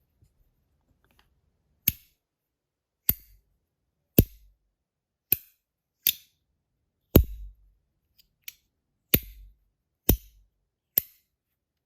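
Compoform V1.1 Mini, a welded metal fidget with magnets in its plates, snapped shut about ten times at roughly one a second, each a sharp, loud click, some with a short dull thud after it. This is a loudness test: it is really loud, reading about 74 to 89 dB on a meter.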